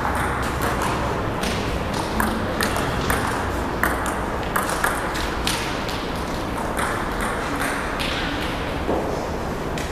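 Table tennis ball clicking sharply off the bats and the table in a rally, about two clicks a second at an uneven rhythm.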